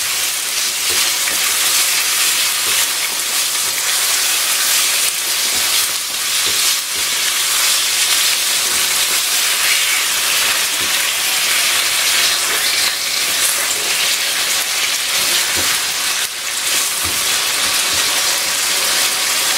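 Chicken pieces frying on high heat in olive oil with garlic in a nonstick wok: a steady sizzling hiss, with occasional scrapes of a spatula stirring the meat as it sears until it turns white.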